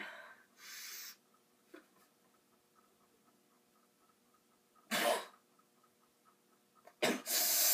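A person coughing: a soft burst just under a second in, a loud cough about five seconds in and another near the end, with quiet in between.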